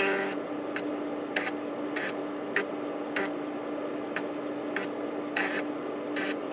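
Opened 3.5-inch floppy drive (Panasonic JU-257A135P) reading a diskette: the spindle motor turns the disk with a steady hum and a rubbing hiss of the head on the media, while the head stepper clicks about every half second as it moves from track to track.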